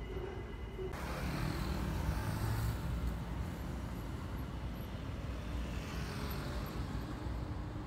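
Busy city road traffic: cars, a pickup truck and a motorcycle driving past close by, their engine and tyre noise swelling twice as vehicles pass. It opens with the steady whine of a monorail train, which cuts off abruptly about a second in.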